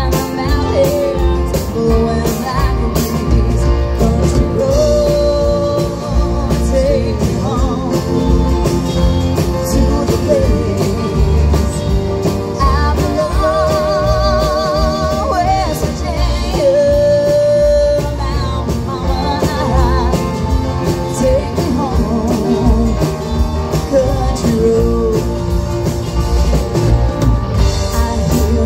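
Live country-rock band played through a PA: electric and acoustic guitars, keyboard and drums, with a voice singing.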